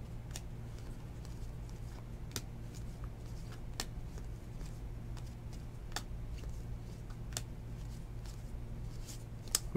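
Baseball trading cards being thumbed through by hand, one card slid off the stack at a time, giving faint scattered clicks every second or two over a steady low hum.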